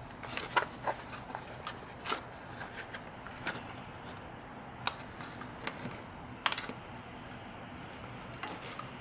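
Scattered light clicks and taps of small engine parts being handled during carburetor removal, a louder click about six and a half seconds in, over a faint steady background hum.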